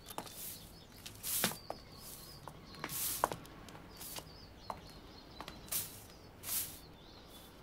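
A stiff broom sweeping a pavement in short strokes about a second apart, with small birds chirping faintly.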